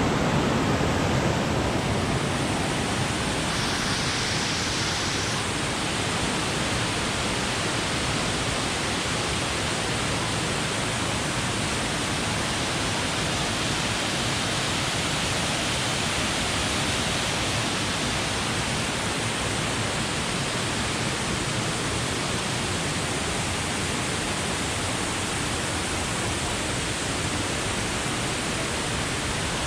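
Soco Falls waterfall rushing: a steady, even wash of falling water with no breaks.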